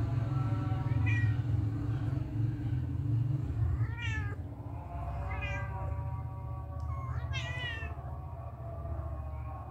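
Kittens mewing about four times in short, high calls that rise and fall in pitch, over a steady low rumble that eases about halfway through.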